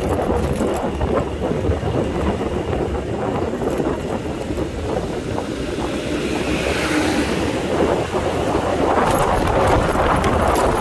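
Motor scooter being ridden along a road: steady engine and road noise mixed with wind rushing over the microphone, with a hiss that swells and fades about seven seconds in and the wind growing louder near the end.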